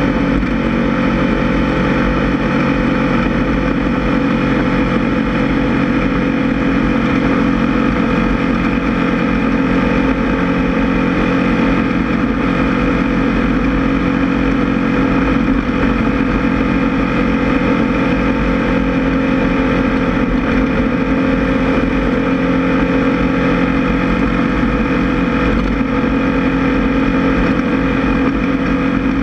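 Class 1600 off-road race buggy's air-cooled 1600 cc VW flat-four engine running at a fairly steady pitch, a loud constant drone that does not let up.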